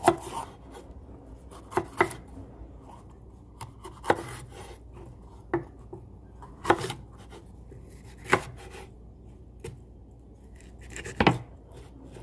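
Kitchen knife cutting food on a cutting board: single, sharp chopping strokes spaced irregularly, about one every second or two.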